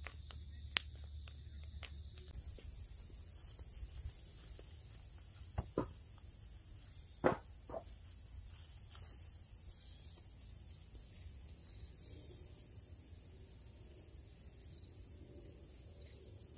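Insects chirring steadily in the background, a constant high-pitched drone, with a few scattered sharp clicks or knocks, the loudest about a second in.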